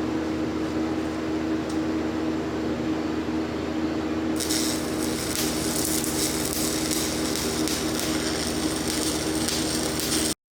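Stick welding on a cast-iron dozer final drive casting with Certanium 889 rods: a steady welder hum, with the crackle of the arc starting about four seconds in, cutting off suddenly near the end.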